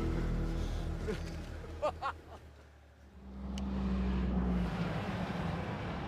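Background music fades out; then, about halfway in, street traffic comes up, with a bus driving past with a steady low engine drone.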